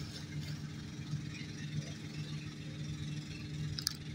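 An engine running steadily at idle, a low, even hum, with a brief click near the end.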